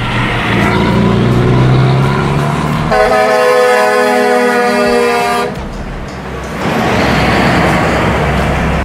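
Heavy diesel trucks passing with engine and tyre noise, and about three seconds in a truck air horn sounds a steady chord for about two and a half seconds before the engine noise swells again.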